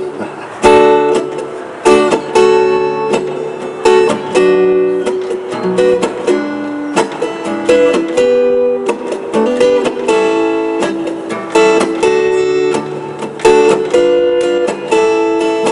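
Acoustic guitar strummed in a steady rhythm, a song's instrumental introduction.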